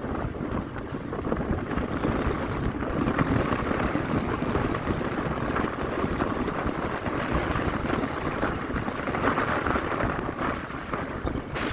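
Truck on the move: a steady rumble of engine and road noise with wind buffeting.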